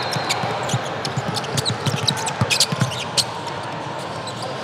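A basketball being dribbled on a hardwood gym floor, with a quick run of bounces in the middle, short squeaks from sneakers on the court, and a steady murmur from the gym.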